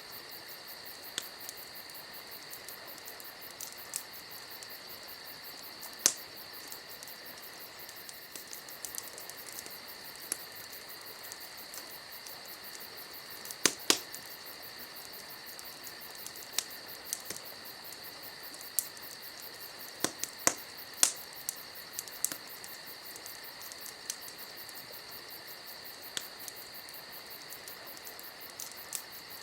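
Crickets chirping steadily, with a wood campfire crackling over them in scattered sharp pops, a few louder snaps about 6, 14 and 21 seconds in.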